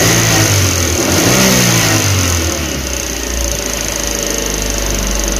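Suzuki APV four-cylinder petrol engine revved twice, the pitch rising and falling, then settling back to a steady idle. It runs evenly with no misfire after the failed number-4 ignition coil was replaced.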